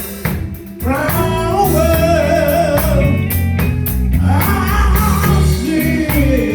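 Gospel group performing: a lead singer's two long, wavering phrases over a band with bass and drums.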